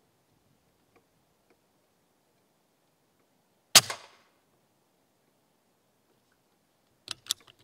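Air rifle firing a single shot about four seconds in, a sharp crack with a short tail. Near the end come two quick sharp clicks.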